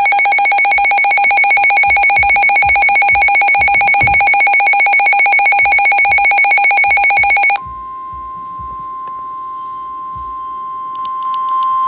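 Emergency Alert System alert tones: a loud, harsh two-tone attention signal with a rapid warble, held for about seven and a half seconds. It then switches suddenly to a quieter, steady single-pitch tone, which leads into the next severe thunderstorm warning.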